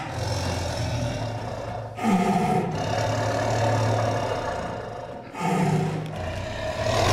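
Tiger growling deeply and steadily, breaking into louder snarls twice, about two seconds in and again about five and a half seconds in.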